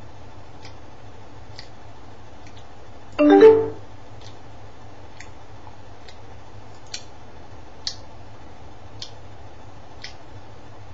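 A clock ticking about once a second. About three seconds in there is one short, loud pitched sound lasting about half a second.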